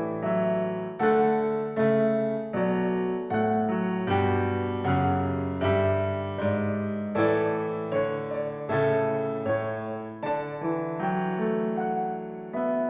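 Background piano music: a calm, steady melody of struck chords and notes that ring and fade, a new chord about every three-quarters of a second.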